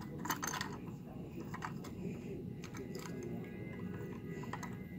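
Scattered light clicks and clatter of a 1/34 scale toy garbage truck being handled, its front-loader arms and toy dumpster knocking together, over a steady low hum.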